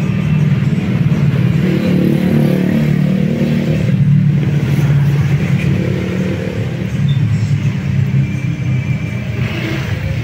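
Motor vehicle engine running close by: a loud, steady low rumble.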